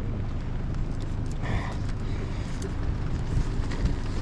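Boat's motor running steadily at low revs, a continuous low rumble.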